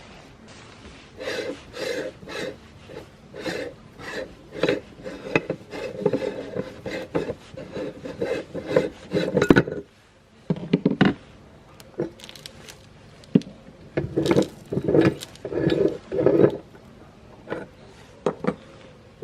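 Meat grinder crunching and rasping through a hard item in irregular bursts, about one to two a second, with brief lulls about ten seconds in and near the end.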